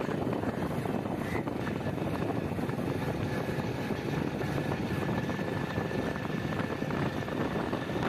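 Motorcycle riding along a rough road, its engine running steadily with wind noise on the microphone.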